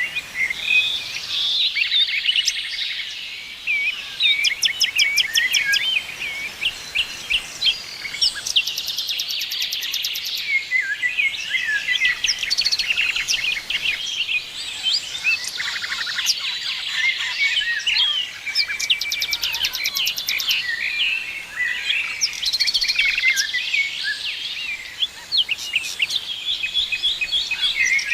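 Many songbirds chirping and calling at once in a dense, continuous chorus, with a few bursts of fast trilling mixed in.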